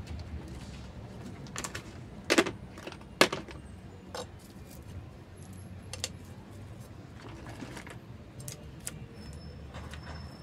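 River pebbles clicking against one another and against the pot's gravel topdressing as they are picked from a tray and set by hand around a potted succulent. The clicks are scattered and sharp, the two loudest coming a few seconds in.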